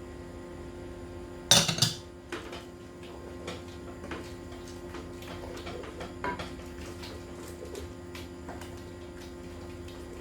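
A metal utensil clatters loudly against a stainless steel pan about one and a half seconds in. It then knocks and scrapes lightly and irregularly against the pan, stirring a sauce.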